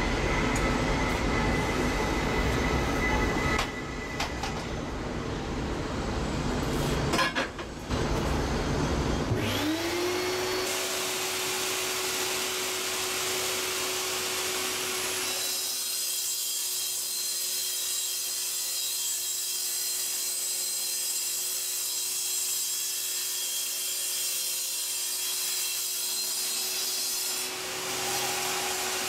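A compound miter saw's motor spins up with a rising whine about a third of the way in, then runs steadily. For much of the second half its blade cuts aluminum extrusion with a harsh, high-pitched noise, and the saw stops near the end. Before the saw starts there is a steady, loud low rumble.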